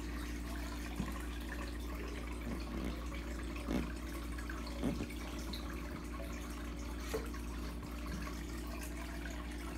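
Turtle tank at rest: a steady low hum with faint water sounds, and a few soft splashes or knocks about one, four, five and seven seconds in as the mating turtles shift.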